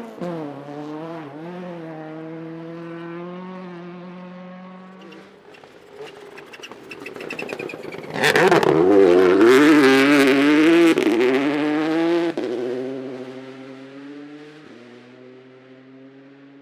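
Rally car engines at full throttle on a gravel stage: one car fading away as it changes up through the gears, then a second car arriving loud and sharp at about eight seconds in, passing close, and pulling away with more upshifts.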